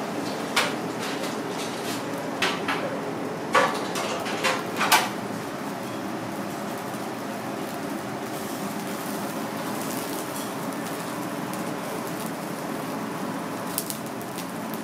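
Steady hiss of a kitchen around a fish grill, with a handful of sharp clinks in the first five seconds and one more near the end.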